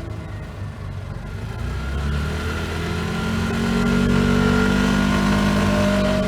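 Polaris vehicle's engine running at low revs, then accelerating: its note rises and grows louder from about two seconds in and holds higher near the end.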